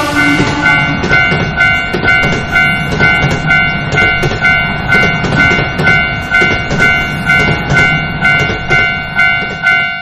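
Railroad crossing alarm ringing its repeating bell tone, about two strikes a second, over the rumble and clatter of a passing train.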